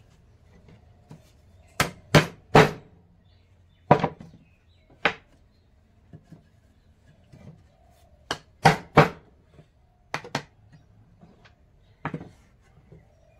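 Irregular sharp knocks of a hand tool striking wood in woodworking, often in quick groups of two or three. The loudest groups come about two seconds in and again a little past the middle, with softer taps between.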